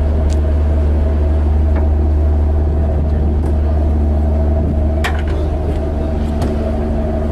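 Steady low drone of a ship's engines and machinery, heard on deck, with one sharp knock about five seconds in.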